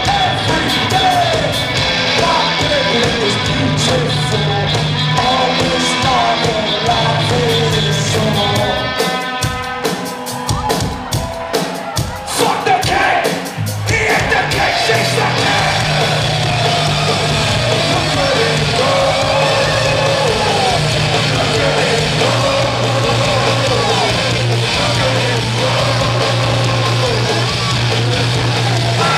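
Live rock band playing loudly: guitars, bass and drums with vocals. About nine seconds in the band drops to a sparse drum-led break, and the full band comes back in around fourteen seconds.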